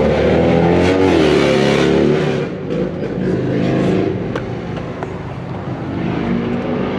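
A motor vehicle engine running, its pitch rising and falling over the first couple of seconds, then settling into a lower, steadier hum. A few light clicks come later on.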